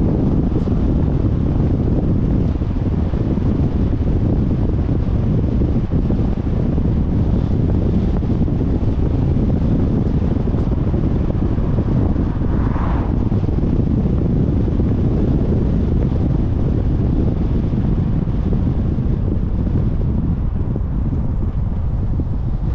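Steady low rumble of wind on the microphone and road noise from a camera mounted on a moving car. About 13 seconds in, a brief higher-pitched sound swells and fades.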